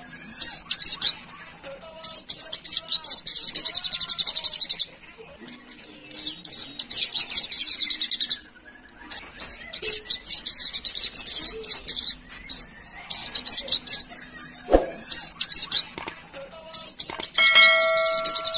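Olive-backed sunbird (sogon) singing: rapid, high-pitched twittering phrases in bursts of one to three seconds, separated by short pauses, over a faint steady hum. Near the end a ringing chime sounds over the song.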